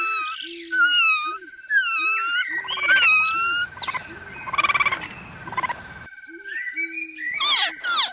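Animation soundtrack of chirping, whistling calls, many sweeping down in pitch, over a steady buzzy tone and a low blip repeating about twice a second.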